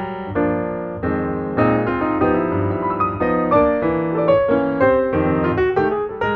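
Background piano music, several notes at a time in a quick, flowing run.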